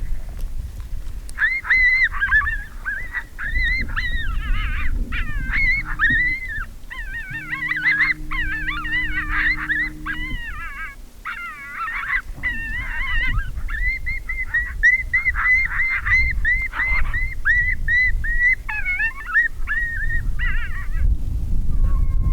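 A group of coyotes yipping and howling together, many quick rising-and-falling yips overlapping in a chorus that starts about a second and a half in and breaks off shortly before the end.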